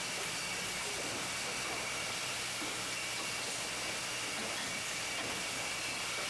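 Yeaman vertical cartoning line for box wine running: a steady hiss with a faint high whine and a low hum.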